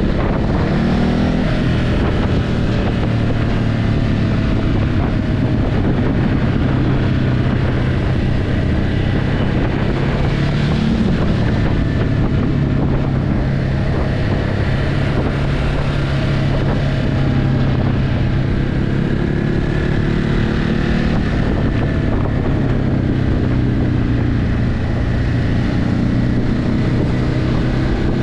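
Ducati Hypermotard 950's L-twin engine through its stock exhaust under way at mostly steady throttle, the pitch rising and falling a couple of times as the rider works the throttle. Wind rushes over the microphone throughout.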